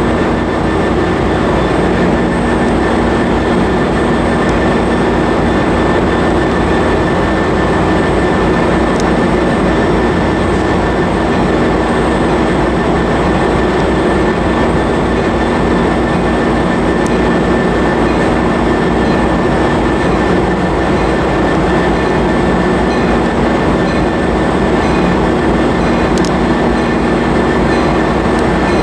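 Diesel passenger locomotive idling: a loud, steady engine drone with a constant high tone over it.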